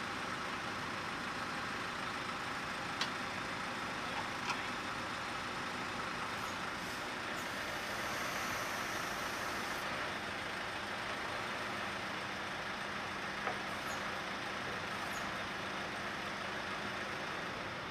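Steady running of a heavy diesel truck engine with a low hum, and a few faint metallic clicks.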